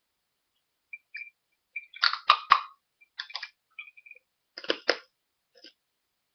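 A person sipping from a mug: three short clusters of slurps and mouth clicks, the loudest about two seconds in.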